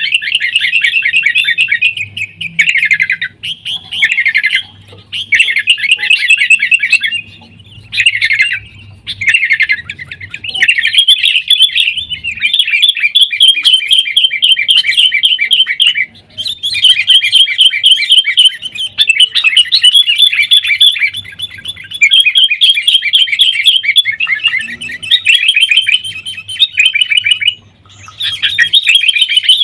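Sooty-headed bulbuls giving rapid, scolding chatter and trills, note after note in runs of several seconds with short breaks between.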